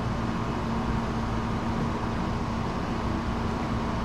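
Steady background hum with hiss: a constant low tone under an even wash of noise, with no clicks or knocks.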